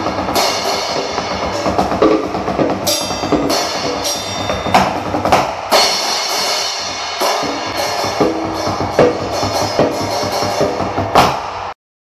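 Drumsticks playing a busy, continuous pattern on a pair of bongos and a red practice pad, with cymbals struck every few seconds. A last loud cymbal hit comes near the end, and then the sound cuts off suddenly.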